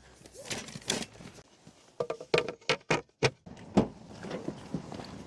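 A quick run of sharp clicks and knocks of small hard objects being handled, about two to three and a half seconds in, with one more knock near four seconds.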